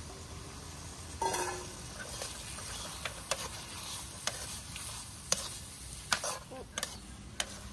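A wok of shredded pork and vegetables sizzling with freshly added sauce, while a spatula stirs and clicks sharply against the wok every second or so.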